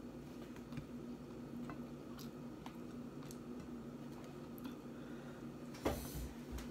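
Quiet eating sounds: chewing, and fingers picking at chicken and rice on a plate, with a few faint clicks over a steady low hum. A louder knock comes near the end.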